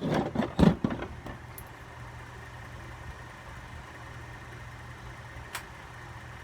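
Steady low electric hum of running fan motors, with a few loud knocks in the first second and a single sharp click about five and a half seconds in.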